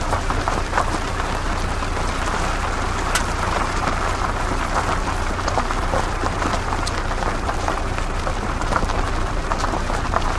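Off-road car driving: a steady low engine rumble under a constant rushing noise scattered with many small clicks.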